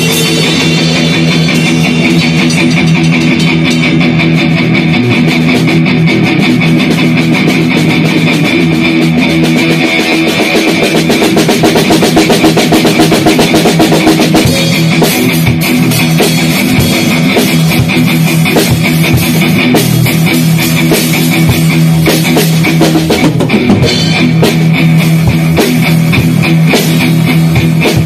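Electric guitar playing loud rock-style music with drums, over a steady low held note.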